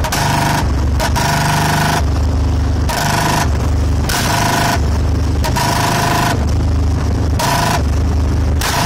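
Royal Enfield Bullet single-cylinder engine revved in repeated throttle blips, loud and distorted, its sound swinging back and forth every half second to a second between a deep exhaust note and a brighter, higher one.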